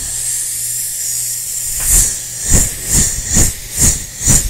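A steady, drawn-out 'sss' hiss made with the mouth close to the microphone, then a run of six short, sharp 'ts' puffs, about two a second, each one popping the microphone with a low thump.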